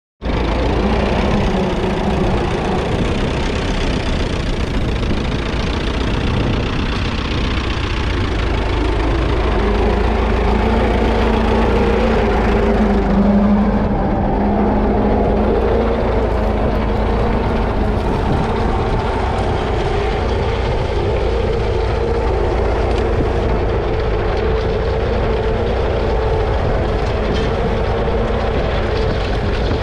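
1939 Fordson Model N tractor's 4.4-litre four-cylinder engine running steadily under load, pulling a Ransomes two-furrow trailed plough through the soil.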